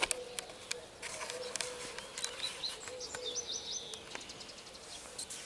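Several birds singing and chirping, with a short run of four quick high notes about three seconds in. Sharp clicks come here and there throughout.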